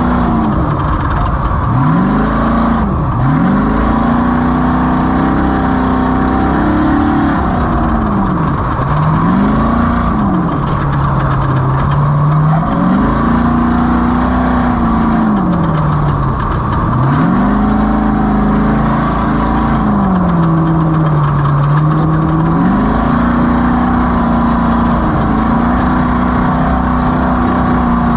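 Off-road race vehicle's engine running hard, its pitch repeatedly climbing, holding and dropping back as the throttle is opened and lifted, about every three to five seconds.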